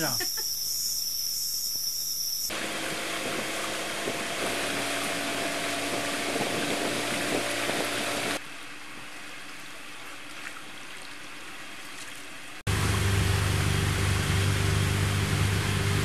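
Insects chirping in a steady high trill for the first couple of seconds. After that comes a boat engine running steadily, a continuous hum with hiss, which turns louder and lower about three-quarters of the way through.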